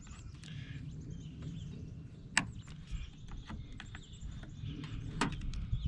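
Small clicks and taps of hand tools and parts while a Husqvarna 350 chainsaw is being taken apart, with a sharp click about two and a half seconds in and another near the end, over a low background rumble.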